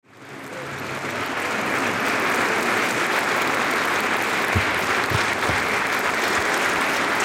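Audience applauding steadily, fading in over the first second, with a few low thumps about halfway through.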